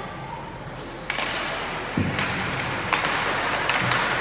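Ice hockey play: sharp clacks of sticks on puck and ice every second or so, over a rising scrape of skates on the ice.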